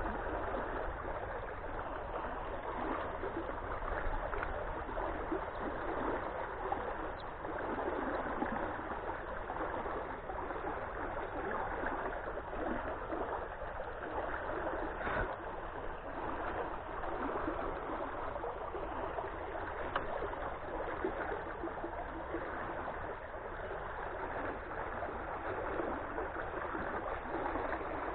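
Shallow flowing water rushing and gurgling steadily, with small splashes.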